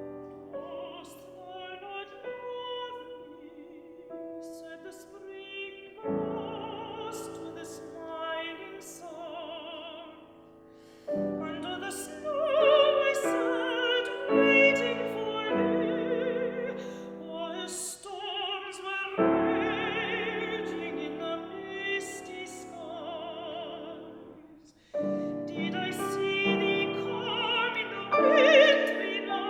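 Classical song with piano accompaniment: female singing with vibrato in phrases separated by short breaks.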